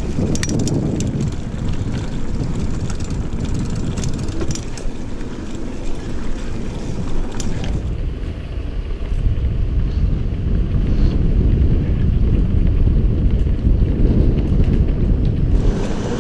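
Wind rushing over a rider's body-worn camera microphone while cycling on a road, with scattered clicks and rattles in the first half. The wind gets louder about nine seconds in.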